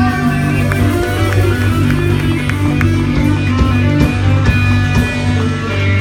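Live band playing: electric guitars and bass over a drum kit, with sustained guitar notes and steady drum hits.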